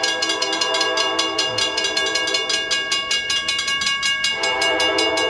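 Railroad crossing warning bell ringing in rapid, evenly repeated dings as the crossing gates come down. A lower, held chord joins in about four seconds in.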